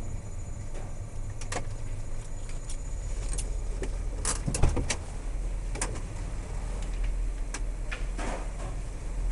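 Inside a parked 1960 Chrysler Saratoga, its engine running as a steady low hum, a string of sharp clicks and knocks from the controls and the door, the loudest a little before halfway, with keys jangling.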